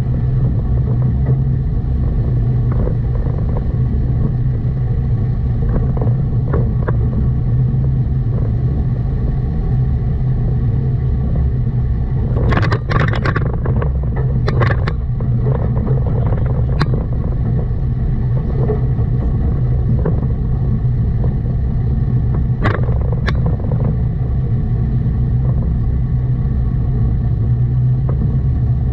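A car on the move: steady low engine and road rumble, with a cluster of short sharp clatters a little before halfway and a few single clicks later.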